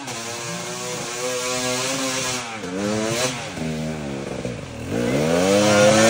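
Husqvarna dirt bike engine revving up and down on a steep, muddy trail. The pitch dips and climbs again a few times, and it grows louder near the end as the bike comes close.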